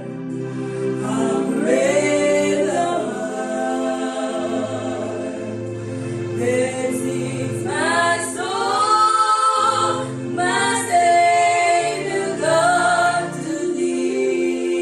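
Gospel worship song: voices singing long held phrases over steady sustained chords.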